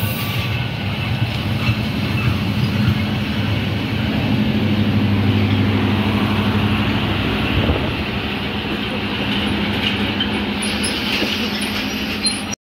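Meter-gauge intercity passenger coaches rolling past close by on the adjacent track: a steady rumble of wheels on rails with a low hum. The hum grows stronger for a few seconds about midway as the train's generator power car passes.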